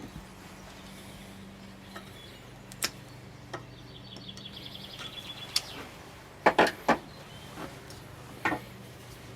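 Scattered metallic clicks and knocks of hand tools at work on a motorcycle being dismantled, with a short run of quick, even ticks in the middle and a cluster of louder knocks about two-thirds of the way through, over a steady low hum.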